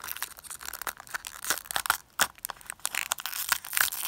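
Thin plastic surprise-egg capsule and its sealed film lid crinkling and crackling as the lid is peeled off, in a fast, irregular run of crackles.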